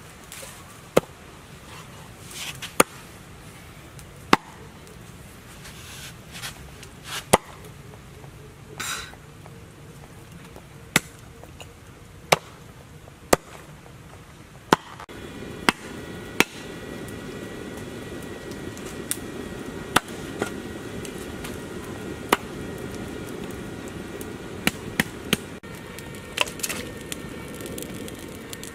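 Cleaver chopping on a cutting board: single sharp knocks, irregularly spaced about a second or two apart. About halfway through, a steady hiss with faint high tones comes in under the chopping.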